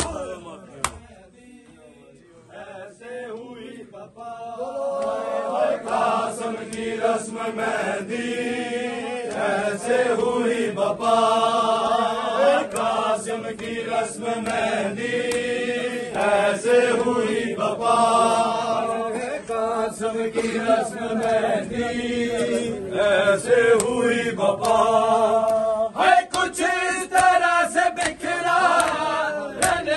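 Men's voices chanting a noha lament together, over the sharp slaps of hands striking bare chests in matam. The chanting starts about four seconds in and carries on steadily, and the slaps come thicker near the end.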